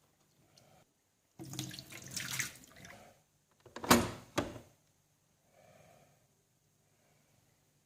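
Water splashing and trickling in two short spurts, about a second and a half in and again near four seconds, the second sharper and louder.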